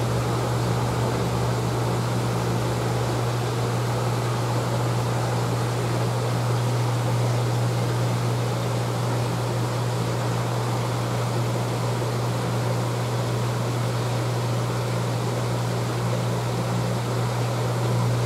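Steady low hum over a constant rushing water noise, the sound of a fish tank's pump and aeration running.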